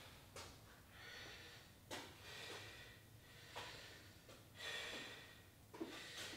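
A person breathing heavily while recovering from exercise: faint, noisy breaths about every second and a half.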